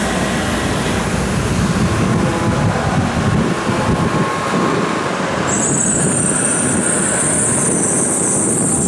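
Tokaido Shinkansen train running at the station platform, a loud steady rushing noise, with a high hiss coming in suddenly a little past halfway and carrying on.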